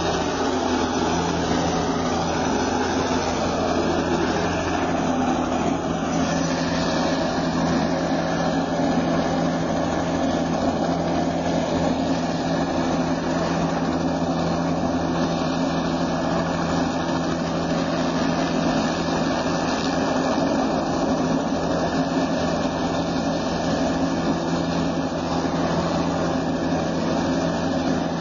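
A steady engine drone with a low hum, unchanging throughout.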